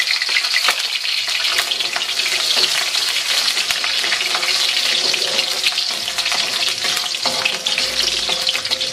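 Chopped garlic sizzling and crackling in hot oil in a metal wok, stirred with a metal spatula.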